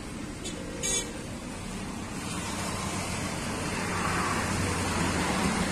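Steady background noise with a low hum, growing a little louder over the last few seconds, and a short rasp about a second in.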